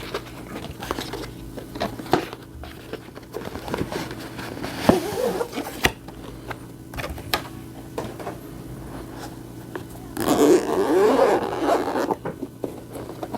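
Unboxing handling noise from the packaging of a GoPro camera and its accessories: a run of small clicks, scrapes and taps, with two louder rustling, crinkling stretches, one about five seconds in and one lasting about two seconds near the end.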